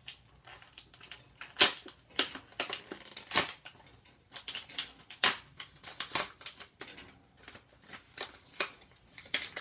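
Stiff plastic blister packaging of a die-cast toy car crackling and clicking irregularly as it is handled and pried open.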